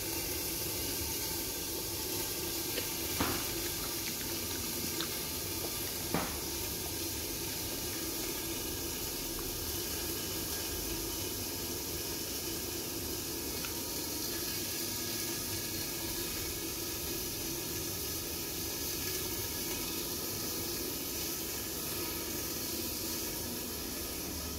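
Steady hiss with a faint hum from chicken cooking in an oven, with two light knocks about three and six seconds in.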